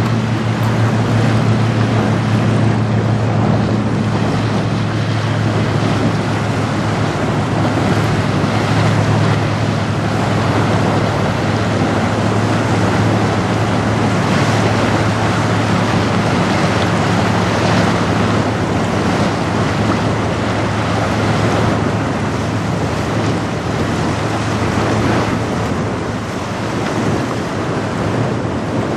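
Wind buffeting the microphone and choppy waves, over the steady low drone of a boat engine that grows fainter in the last third.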